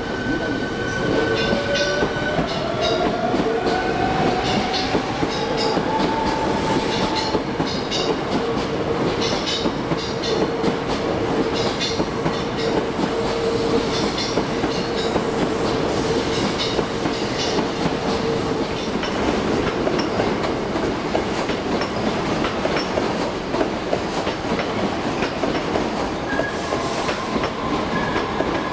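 Hankyu 1300-series electric train pulling out along the platform. Its motor whine rises in pitch over the first several seconds as it speeds up, and the wheels click over the rail joints as the cars roll past.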